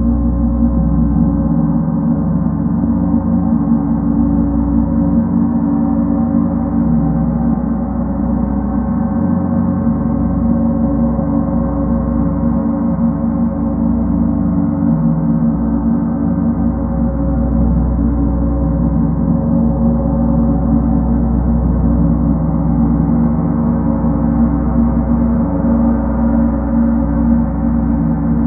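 Large gong played with two soft felt mallets in a continuous fast roll, building a loud, steady wash of many overlapping low tones with no separate strokes standing out.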